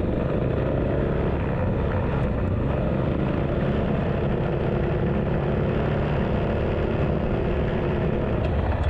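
Off-road motorcycle engines running steadily at a cruising pace, with an even, unchanging drone.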